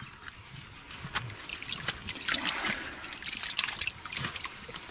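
Muddy water trickling and dripping as a rusted steel helmet packed with mud is lifted out of a waterlogged pit, with irregular small wet splats and clicks.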